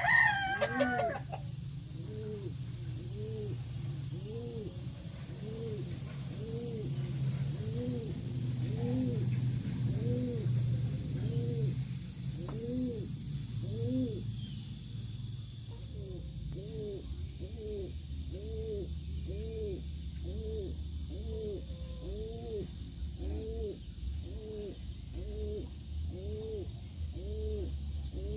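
Pigeons cooing over and over, each coo a low note that rises and falls, about one a second, over a steady low hum. The tail end of a rooster's crow is heard right at the start.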